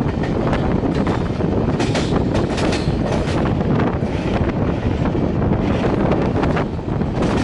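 Moving express train on the rails: a steady rushing noise of wheels and wind, with rapid rattling clicks through the middle, and wind buffeting the microphone.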